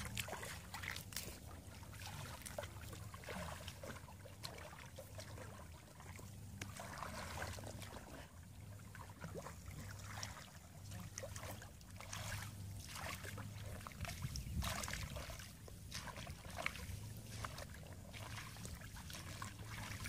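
Water sloshing and splashing irregularly as bare feet wade and hands feel through shallow, muddy paddy water, over a steady low rumble.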